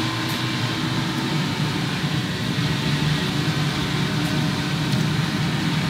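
Steady mechanical hum with a low drone and a few faint ticks.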